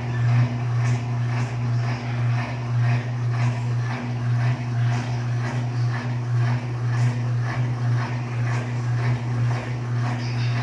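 Electrolux LTD13 13 kg top-loading washing machine in its second rinse: the motor hums steadily while the wash churns with a swishing rhythm about twice a second.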